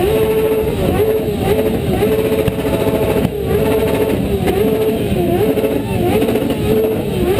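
Motorcycle engines revved and held at high revs, the pitch dipping briefly and climbing back several times over a loud low rumble.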